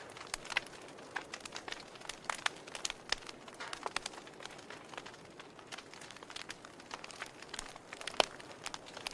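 Wood fire in a fireplace crackling: irregular sharp pops and snaps over a soft steady hiss of burning, with one louder pop about eight seconds in.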